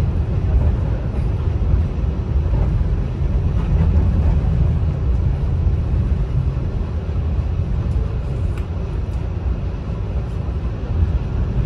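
R68 subway car running at speed along an elevated steel track, heard from inside the car: a steady low rumble of wheels and running gear.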